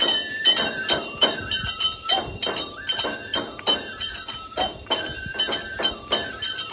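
Nebuta bayashi festival music: a steady beat of taiko drum strokes under a bamboo-flute melody that steps up and down, with bright ringing of tebiragane hand cymbals and jingling bells throughout.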